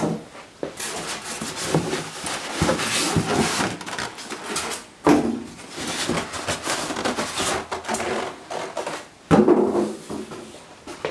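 Polystyrene foam packing blocks and plastic wrapping being handled inside a cardboard TV box: scraping and rustling. There are sharper knocks at the start, about five seconds in and about nine seconds in.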